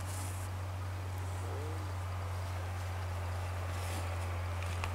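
Open-air ambience with a steady low hum, faint insects or birds, and a brief faint call about a second and a half in; a few sharp clicks near the end.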